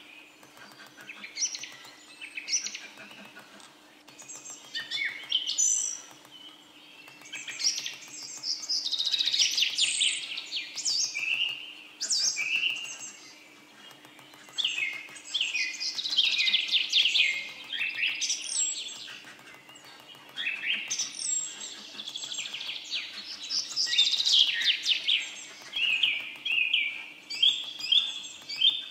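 A songbird singing in long bouts of rapid trills and chirps, the loudest sound throughout. Underneath, a hammer taps steadily and quickly on a chisel, engraving a thin copper-alloy sheet on a steel stake.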